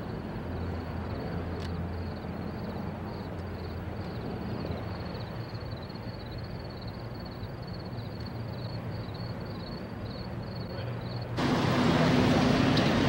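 Outdoor ambience with nobody speaking: a low steady hum under a high, evenly pulsing chirr. About eleven seconds in it cuts abruptly to louder city street noise with traffic.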